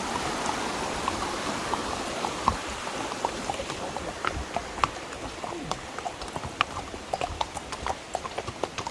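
Horse hooves clip-clopping on the trail as irregular sharp knocks, over a steady hiss that fades after the first few seconds.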